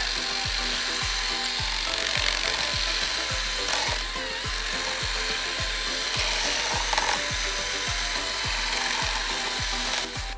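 Power drill with a size 9 bit grinding steadily as it bores a hole through the hard base of a motorcycle side-mirror stem, under background music with a steady beat.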